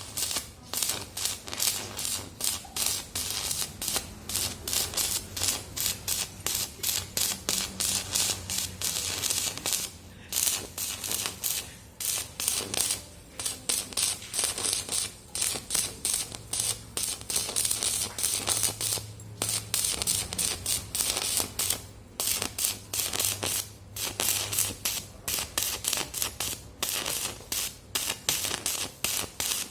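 Electric arc welding: the arc crackling and sizzling as a dense run of rapid snaps with a bright hiss, broken by several brief pauses where the arc stops.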